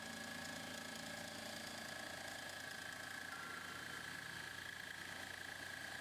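Marble-milling robot running: a steady high whine over an even hiss, with no change through the stretch.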